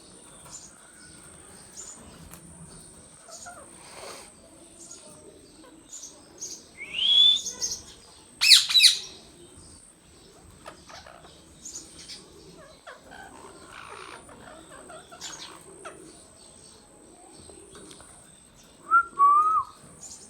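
Indian ringneck parakeet calling in a few separate bursts. A rising whistle comes about seven seconds in. Sharp, shrill screeches follow a second later and are the loudest sound. A short two-note call comes near the end.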